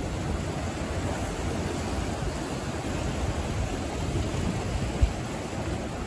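Sea waves washing onto the shore, a steady rushing noise heaviest in the low end, with a brief low thump about five seconds in.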